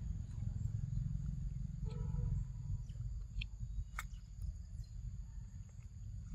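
Macaque biting and chewing fruit, with a sharp crunch about four seconds in and a few smaller clicks before it. Under it run a steady low rumble and a high, even insect drone.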